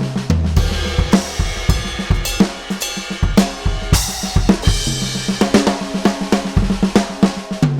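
Sampled acoustic drum kit played fast and busily from an EFNOTE 5 electronic kit triggering virtual drum software: kick, snare, hi-hat and cymbal hits. Held low pitched notes, as from a bass in a backing track, sound under the drums.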